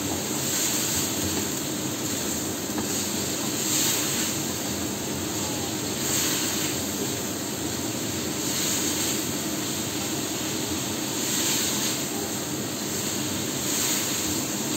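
Chicken and pork sizzling in a nonstick wok over a gas flame, cooked without oil, with a steady rushing hiss. The sound swells every two to three seconds as a spatula turns the meat.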